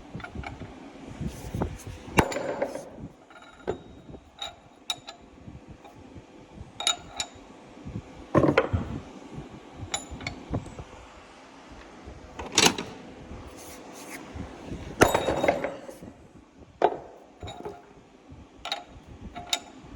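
Hammer blows on steel, driving a new bearing race into a Gleaner R72 final drive housing: about fifteen separate sharp metal strikes at uneven intervals, each ringing briefly, the race not yet fully seated.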